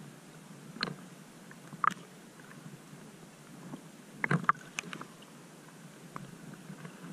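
Shallow sea water lapping and sloshing against a camera held at the waterline: a steady wash broken by short splashes about a second in, near two seconds, a small cluster midway and one more at the very end.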